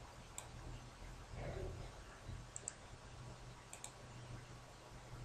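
Faint computer mouse clicks: a single click, then two quick double-clicks, over a low steady hum.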